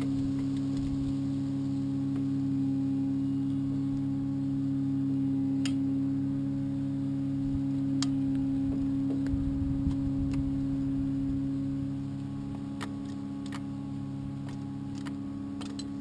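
A steady low hum of a few held tones, a little quieter after about twelve seconds, with scattered faint clicks as pliers work the brake caliper piston.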